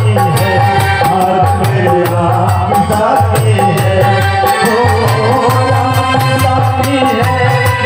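Devotional Hindi folk song played loudly through a stage PA system: a man singing over a steady beat with shaker-like percussion.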